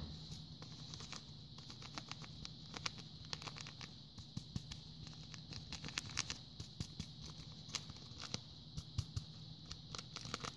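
Instant yeast shaken from a paper packet onto a mound of flour: a faint patter of small, irregular ticks as the granules fall and the packet is tapped.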